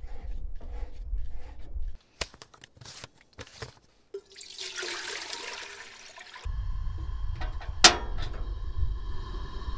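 Water poured from a large plastic water bottle into a metal cooking pot, rushing and splashing for about two seconds starting about four seconds in, after a few handling clicks.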